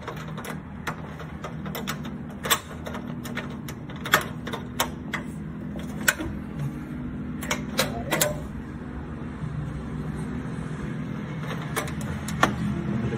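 Sharp metallic clicks, a dozen or so at irregular intervals, from a door's lever handle and thumb-turn lock being worked by hand. A steady low hum runs beneath.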